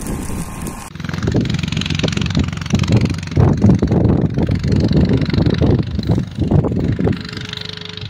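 Wind buffeting a phone's microphone in uneven low rumbling gusts.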